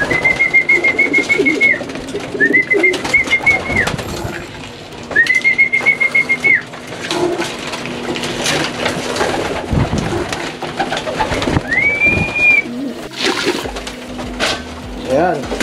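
Racing pigeons cooing in a small loft, amid scattered sharp clicks. Four long, high, steady notes with a slight warble, each about a second and a half, sound over the cooing: three close together at the start and one more about twelve seconds in.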